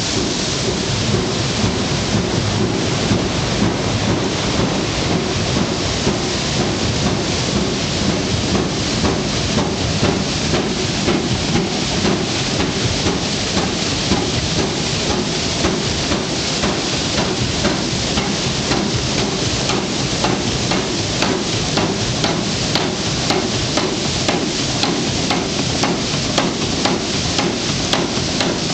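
Water rushing onto a turning water wheel, with the steady beat of the big water-powered trip hammer (maglio) it drives striking at a fast, regular pace of about two blows a second.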